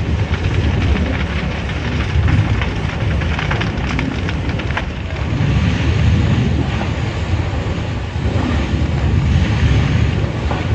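Large barn fire burning: a steady low rumble with sharp crackles and pops, thickest about two to four seconds in.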